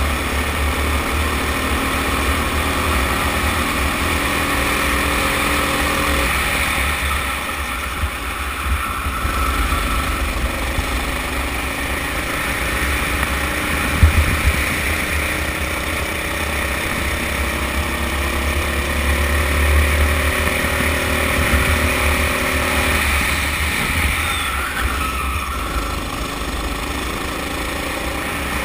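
Sodi go-kart's engine heard from on board, revving up along the straights and dropping off as the driver lifts for the corners, twice, over a constant low rumble. A single sharp knock about halfway through, as the kart runs along a kerb.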